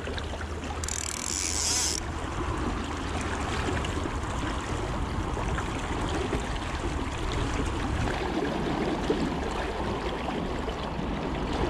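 Fast river water rushing steadily, the river running high after rain, with a brief higher hiss about a second in.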